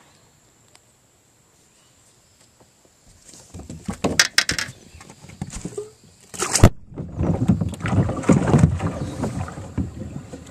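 Knocks, scuffs and rustling on a boat deck close to the microphone, as the angler moves about with his trouser leg brushing against it; one sharp knock about halfway through is the loudest.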